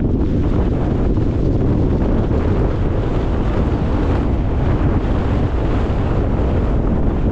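Strong wind buffeting the microphone: a loud, steady, low rumble of noise.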